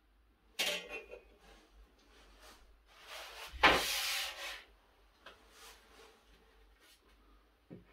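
Hand tools being handled on an MDF board: a short scrape about half a second in, then a carpenter's square set down with a sharp knock and slid across the board around the middle, followed by a few light wooden taps.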